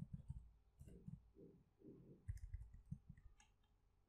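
Faint computer keyboard typing: a scatter of soft key clicks and taps.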